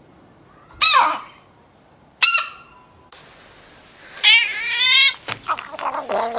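Animal calls: two short, sharp, high cries about a second and a half apart. After a change in background noise, a longer wavering call follows, then a run of smaller noises.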